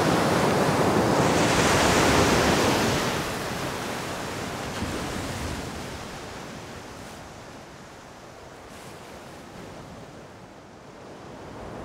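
Heavy storm surf breaking and rushing against a sandbag sea wall, with wind. The sound is loud at first, then fades away gradually over several seconds.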